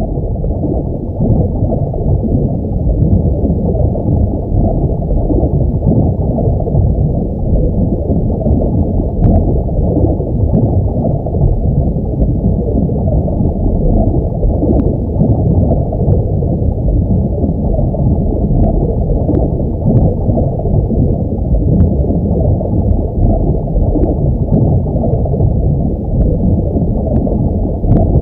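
Underwater ambience sound effect: a steady, muffled rumble and gurgle of water, with faint small clicks scattered throughout.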